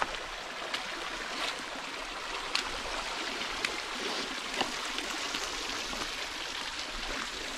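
A shallow rocky creek running steadily, with scattered light clicks and scuffs of sandal steps on the wet stones.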